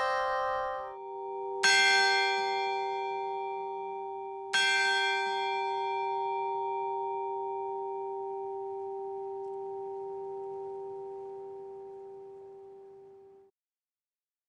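A bell struck twice, about three seconds apart, each stroke ringing out long in several steady tones and slowly dying away before cutting off suddenly near the end. The ringing of an earlier quick run of chime notes stops about a second in.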